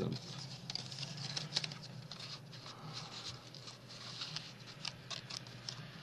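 Paper and cardstock being handled: faint, scattered ticks and short rustles as handmade envelope-book pages are moved.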